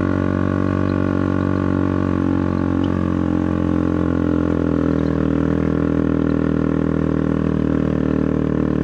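Motorcycle engine running at a steady speed, a constant low drone.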